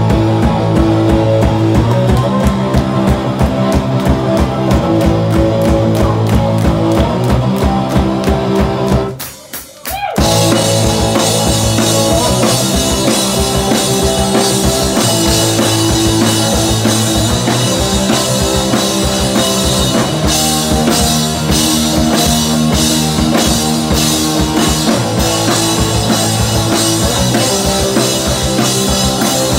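Live punk rock band playing, with distorted electric guitar over a driving drum kit. The band stops dead about nine seconds in for roughly a second, then crashes back in at full volume.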